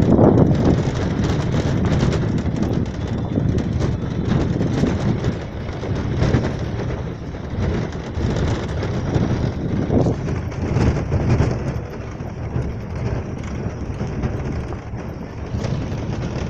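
Wind buffeting a phone microphone: a low rumbling rush that rises and falls in irregular gusts.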